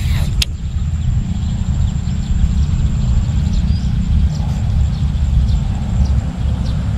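Wind buffeting the microphone, a heavy uneven low rumble throughout, with a faint steady high-pitched whine above it and a single sharp click just after the start.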